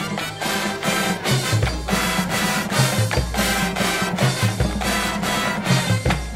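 Marching band playing, brass and percussion together, with strong accented hits and a deep low note landing about every second and a half.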